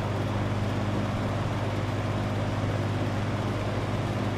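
1963 General Electric three-speed reversible box fan running on its high setting: a steady low motor hum under the even rush of air from its blades.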